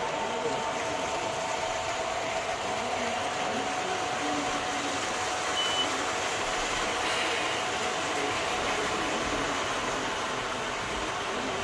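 Model freight train cars rolling past on the layout's track: a steady rolling noise, with faint voices in the room behind it and a short high beep about halfway through.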